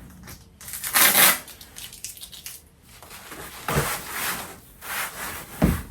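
Handling noises from working on a plastic Halloween prop: several short rustles and scrapes, with two dull thumps, one partway through and one near the end.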